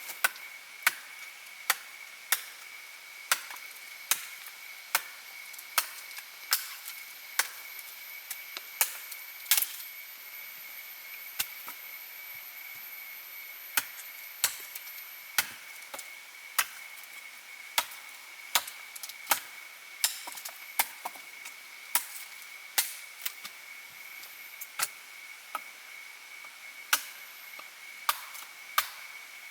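Wood being chopped with a blade: a long run of sharp strikes a little more than one a second, with a few short pauses.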